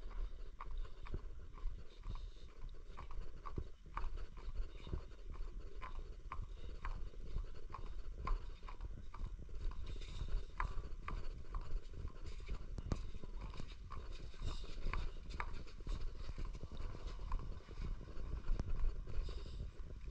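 Footsteps on a paved concrete walkway at a steady walking pace, about two to three steps a second, over a low rumble.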